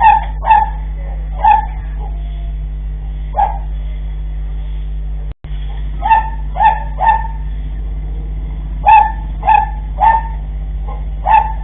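A dog barking: about a dozen short, sharp barks in irregular bursts, over a steady low hum. The sound cuts out completely for a moment a little before the middle.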